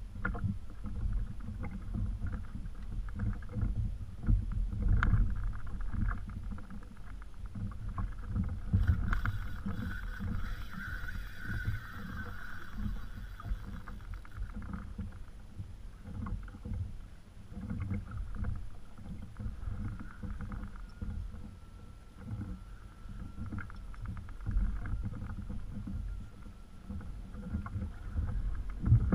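Water lapping against a plastic kayak's hull under a steady low rumble of wind on the camera microphone, with a few sharp knocks of gear against the hull. For a few seconds around the middle a higher whir rises over it.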